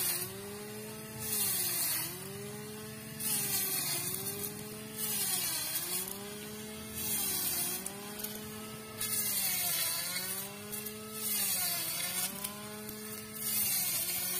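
Cordless electric string trimmer, run over-volted on a 6S battery pack, whining at high speed as it is swept back and forth through thick grass. Its pitch sags and recovers about every two seconds as the line bites in, each sweep bringing a rush of cut grass.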